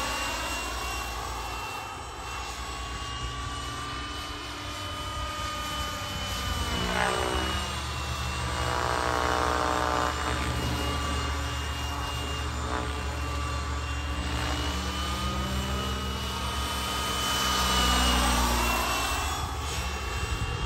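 Turbine-powered Whiplash 700 RC helicopter in flight: a steady high-pitched turbine whine over rotor noise, swelling as it passes close about nine seconds in and again near the end.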